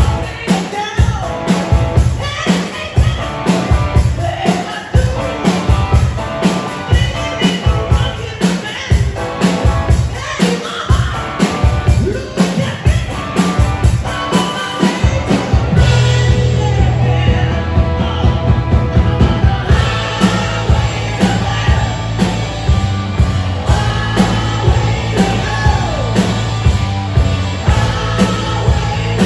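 Live rock band playing loudly: drum kit, electric guitar, electric bass and a male lead singer. About halfway through, the music shifts into a fuller section with a held, sustained bass line under the beat.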